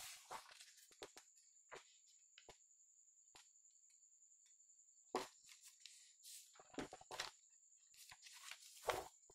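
Paper pages of a printed question booklet being turned and handled: soft rustles and light taps just after the start, a quiet stretch, then more rustling from about five seconds in.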